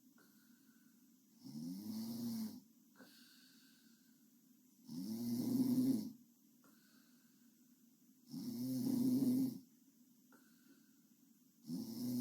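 A sleeping girl snoring in a steady rhythm: pitched snores of about a second each, roughly every three and a half seconds. There are three full snores, and a fourth starts near the end.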